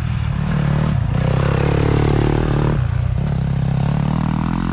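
Dirt bike engine revving as the bike rides past, its pitch rising and falling, with a brief drop in the engine note about three seconds in before it picks up again.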